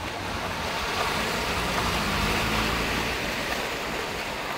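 Steady rush of heavy rain and floodwater, with a car driving through the water close by: a low engine hum and tyre wash swell about a second in and ease off toward the end.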